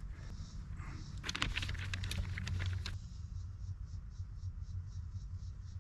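Small crinkles and clicks of handling on a plastic bag, then a wooden craft stick scraping two-part JB Weld epoxy in quick, even strokes, about three a second, as it is mixed and spread into a plastic magnet mount.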